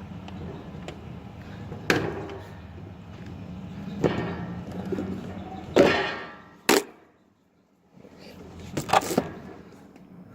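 Handling noise from tools and parts: a few sharp clicks and knocks and a short rustling crackle, over a steady low hum. The sound drops out almost completely for about a second past the middle.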